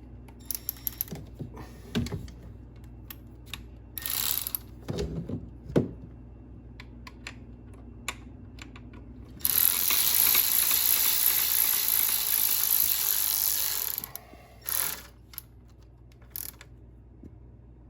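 A ratchet clicking as the hold-down bolt of a new ignition coil pack is turned on a Ford 5.4-litre engine, with scattered clicks and knocks of tools on metal. A loud, steady hiss runs for about four and a half seconds from just past the middle.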